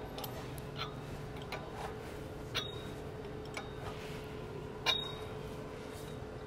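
Sparse metal clicks and clinks of a hand wrench tightening the set bolts on a conveyor belt precleaner's tensioner, with two sharper, briefly ringing clinks about two and a half and five seconds in. A steady faint hum runs underneath.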